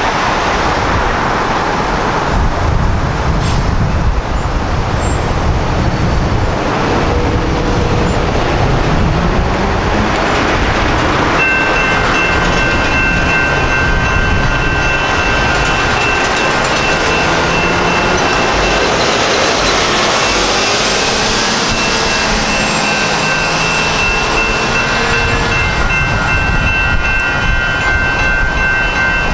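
Road traffic passing. About eleven seconds in, a railroad grade-crossing bell starts ringing steadily as the crossing signals activate, the warning of an approaching light rail train.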